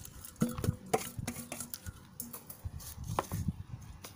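Scattered light clicks and knocks from handling raw beef ribs and pounded lemongrass paste in a cooking pot.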